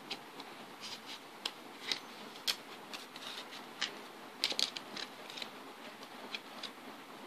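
Playing cards being handled: irregular light clicks and rustles of card stock, with a quick cluster of them about four and a half seconds in, over a steady hiss.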